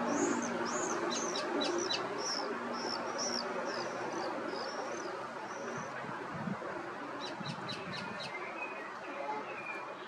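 Birds calling over a steady background hiss: a quick run of short, high chirps for about the first five seconds, then a brief cluster of sharp clicking notes about seven seconds in.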